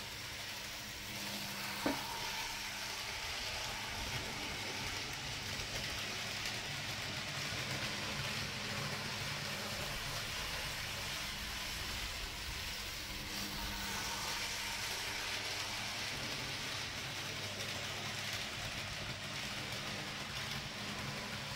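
N gauge model steam locomotive running round the layout: a steady whir and hiss from its small motor and wheels on the rails, with a single click about two seconds in.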